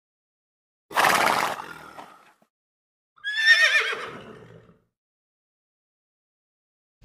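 Two horse neighs: a rough, noisy one about a second in, then a quavering whinny that falls in pitch about three seconds in.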